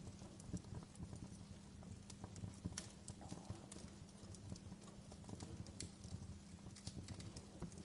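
Wood fire crackling: irregular sharp pops and snaps, faint, over a low steady rumble.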